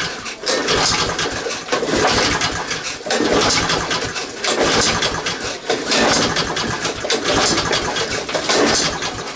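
Honda lawn mower engine being pull-started again and again on its recoil starter, about seven quick pulls in a row, each turning the engine over with a rapid chugging without it catching.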